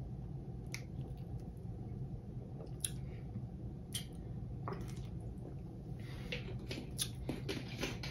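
A person drinking a carbonated sparkling drink from a plastic bottle: scattered soft gulping and mouth clicks over a low steady hum, with a quicker run of wet mouth clicks near the end.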